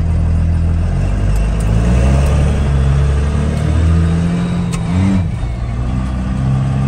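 First-generation Dodge Ram's 5.9-litre Cummins inline-six turbo diesel pulling under acceleration, heard from inside the cab. Its pitch climbs about a second in and dips briefly about five seconds in.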